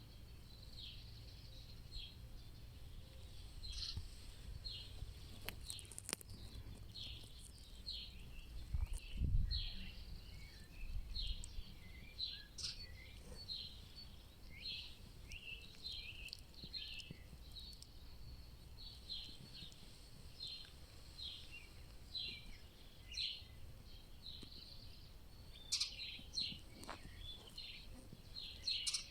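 Forest songbirds singing: a continuous stream of short, high chirps and quick downward-sweeping notes from several birds. A low rumble about nine seconds in is the loudest moment.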